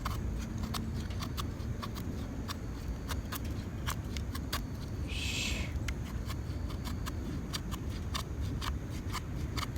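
Knife carving a feather stick: irregular small clicks and ticks of the blade on the wood, with one longer hissing shaving stroke about five seconds in, over a steady low rumble.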